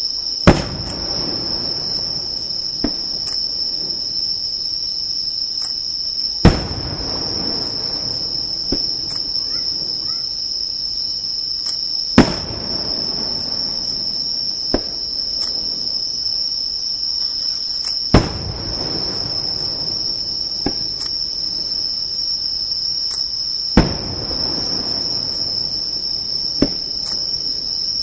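Aerial firework shells bursting in five loud booms about six seconds apart, each trailing off in a rumbling echo, with a fainter pop between each pair. A steady high-pitched insect trill goes on underneath.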